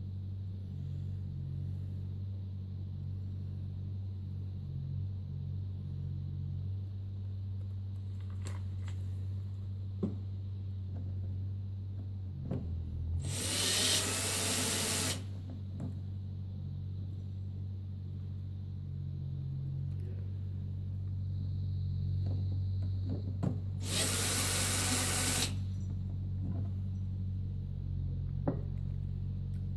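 DeWalt power screwdriver running in two short bursts of about two seconds each, near the middle and again about ten seconds later, driving Baldwin piano finger nuts down onto new rubber grommets. Between the bursts come a few light clicks over a steady low hum.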